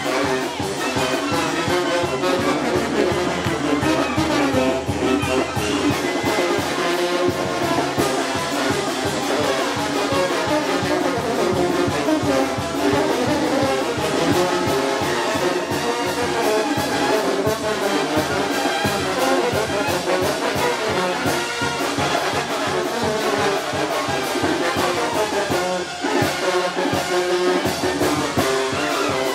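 Oaxacan brass band (banda de viento) playing festive calenda dance music, trumpets and trombones over a steady beat.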